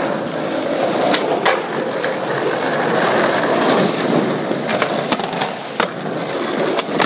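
Skateboard wheels rolling steadily over smooth concrete, a continuous rushing noise, with a few sharp clacks scattered through it.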